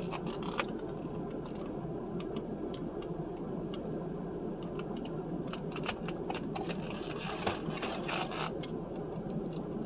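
Close-up eating sounds: small clicks and crackles of chewing and food-wrapper handling, thickest in the second half, over a steady low background hum.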